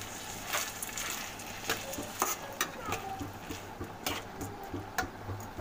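A metal spatula stirring raw rice grains around a kadhai in hot oil with cumin seeds, with irregular scrapes and clicks against the pan over a light steady sizzle. This is the sautéing stage of jeera rice, before water goes in.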